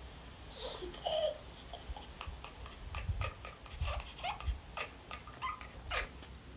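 A toddler giggling and babbling while a tabby cat squeezed in her arms gives short complaining cries, a cat held against its will. Low bumps from handling come through in the middle.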